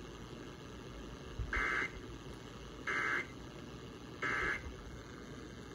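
Three short, buzzy data bursts from a weather-radio receiver, evenly spaced about a second and a half apart over a faint hiss. These are the Emergency Alert System end-of-message data tones that close a NOAA Weather Radio flash flood warning.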